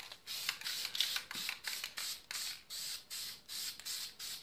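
Aerosol spray paint can hissing in a run of short spurts, about two a second, as a coat of paint is sprayed onto a plastic phone case.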